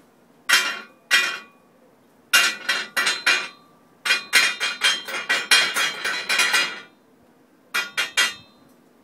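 A hammer striking steel held in a bench vise, each blow ringing. There are two single blows, then a quick run of blows at about three to four a second, and three more near the end.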